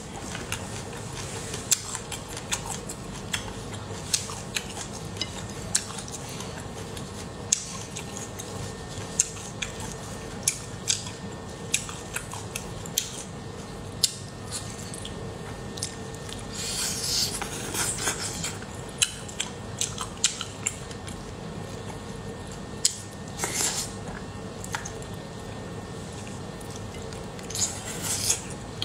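A person eating chili-oil fish pieces: chewing and biting with many sharp wet mouth clicks. A few longer, louder bursts of mouth noise come about two-thirds of the way in and near the end.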